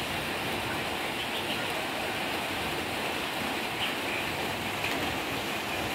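Steady, even rushing noise like rain or water, with a few faint short high chirps.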